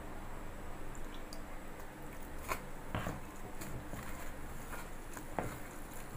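A hand squishing and kneading a wet pakora mixture of mashed raw potato, onion and gram flour in a steel bowl, with a few light clicks.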